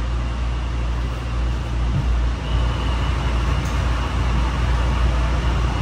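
Honolulu Skyline metro train car running, heard from inside the passenger cabin: a steady low rumble with even noise above it.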